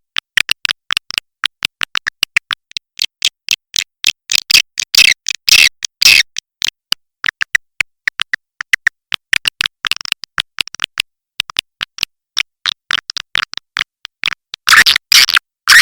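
Swiftlet lure-call recording: rapid, dense twittering chirps of swiftlets in quick runs with brief silent gaps, and louder clusters about four to six seconds in and again near the end.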